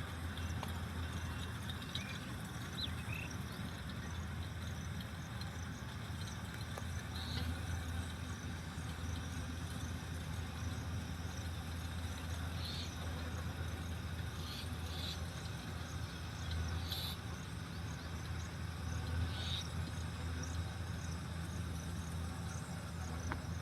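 Yanmar 70GV combine harvester's engine running steadily with an even low hum.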